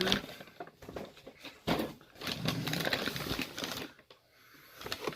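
Rustling and scattered clicks of food packaging being handled, irregular for about three and a half seconds and then fading to quieter handling.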